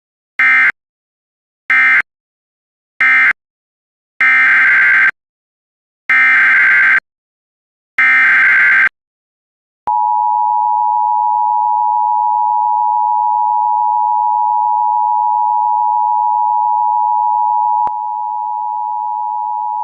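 Emergency Alert System data tones: three short bursts of digital warbling, the end-of-message code closing one alert. Then three longer bursts, the SAME header of the next alert. Then the steady two-tone EAS attention signal starts about halfway through and keeps sounding, with a click and a slight drop in level near the end.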